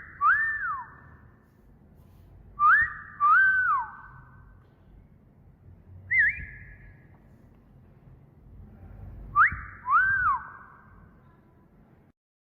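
Wolf whistle repeated for a parrot to learn: a quick upward note followed by a longer note that rises and then falls. It comes three times, with a short single note between the second and third, and the notes ring on with a slight echo.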